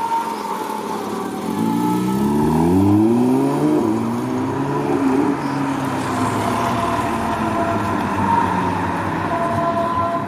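Porsche 911 GT3's naturally aspirated flat-six accelerating away: the revs climb from about a second and a half in, drop at a gear change, climb again, then hold steady.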